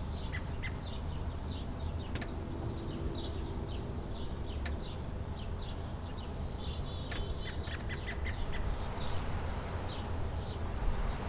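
A robin calling from a tree: a run of short, high chirps repeated irregularly, with a few thin, very high notes among them, over a steady low rumble. The uploader takes the call for a mating call.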